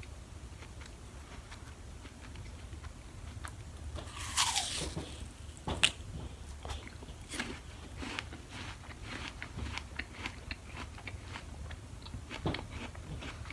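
Crisp crunching of a raw Cosmic Crisp apple being bitten and chewed, with a denser, louder burst of crunching about four to six seconds in, ending in one sharp crack.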